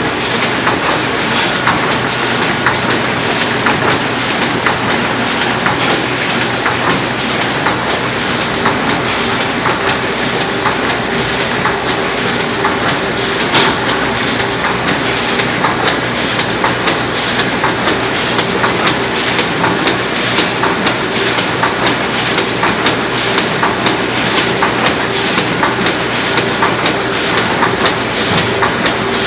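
Oliver 66 semi-automatic offset printing press running steadily, its mechanism clattering with a rapid, even run of clicks and knocks.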